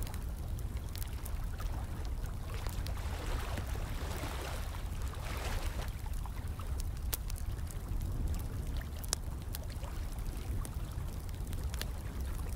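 Running, trickling water mixed with a fire crackling, with frequent sharp pops over a steady low rumble.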